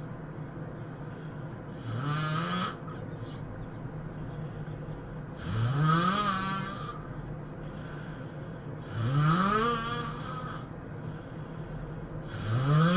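A person snoring heavily, four loud snores in a steady breathing rhythm about three and a half seconds apart. Each snore rises in pitch, and the last one starts near the end.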